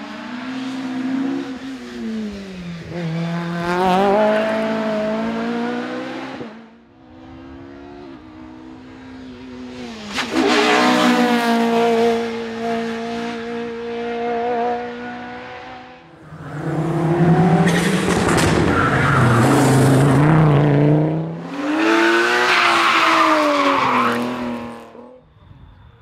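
Rally cars driven hard past the roadside on a tarmac stage, in several separate passes. In each pass the engine's pitch climbs and drops through gear changes, then fades as the car goes by.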